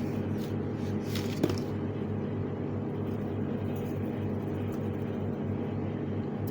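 Steady low mechanical hum, like a motor or fan running, with one light tap about a second and a half in.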